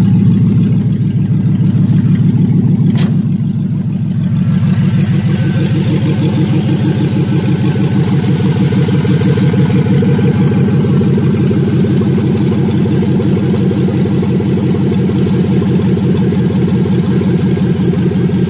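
A junkyard 5.3-litre LS V8 (Vortec 5300), swapped into a G-body Cutlass, idling steadily. A single sharp click comes about three seconds in.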